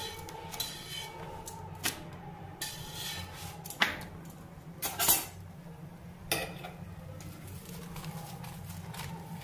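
Steel spatula and spoon clinking and scraping on a tawa (flat griddle) as a paratha is flipped and ghee is spread over it: a string of sharp metal clinks, the loudest about four and five seconds in, over a steady low hum.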